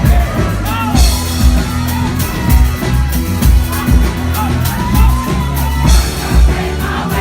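A live rock band playing, with a steady kick drum about twice a second, bass and a sung vocal line. Cymbal crashes come in about a second in and again near the end.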